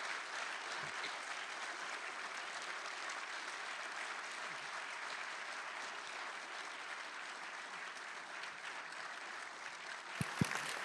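Audience applauding steadily, with a couple of sharp knocks near the end.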